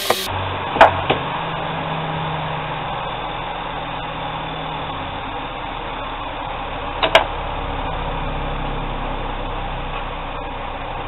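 Bench grinder motor running steadily, with a few sharp clicks near the start and one about seven seconds in.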